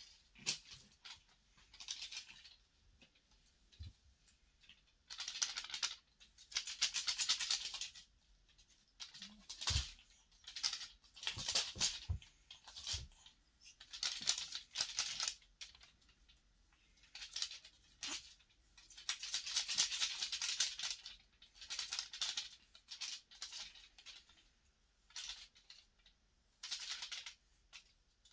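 Bursts of rustling and scratching, on and off, as a kitten plays with a feather wand toy on a shaggy faux-fur blanket, with a few soft thumps near the middle.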